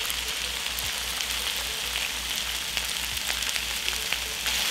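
Stir-fry of chicken and vegetables sizzling steadily in a hot electric wok as sesame sauce is poured into it, with faint scattered crackles.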